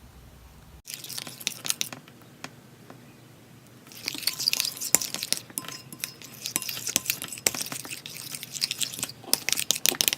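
A spoon stirring and scraping food colouring into glue in a container: a quick, uneven run of small clicks, scrapes and sticky crackles that grows much busier about four seconds in.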